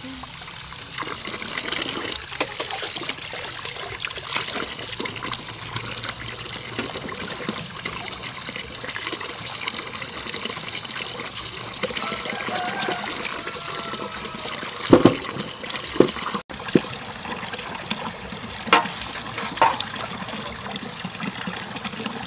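Tap water running and splashing into a large aluminium basin as vegetables are washed by hand in it. A few sharp knocks come in the second half, the loudest about 15 seconds in.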